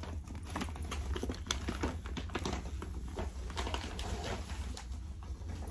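Paper gift bag and tissue paper rustling and crinkling in quick, irregular crackles as items are pulled out and handled. A steady low hum runs underneath.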